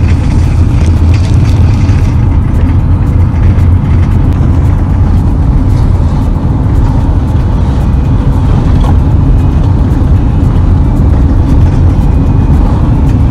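Steady, loud, low rumble of engine and road noise heard from inside a moving vehicle.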